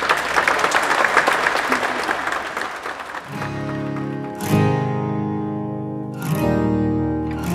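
A crowd applauding for about the first three seconds, then acoustic guitar music comes in, with strummed chords ringing out about every second and a half.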